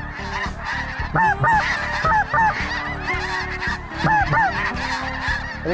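A flock of snow geese calling: many high honks overlapping without a break, each rising and falling in pitch.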